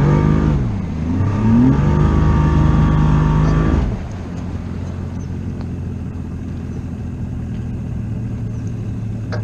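Bass boat's outboard motor revving up under throttle, the pitch dipping briefly and climbing again before holding steady; about four seconds in the engine note gives way to a steadier, lower drone as the boat runs on.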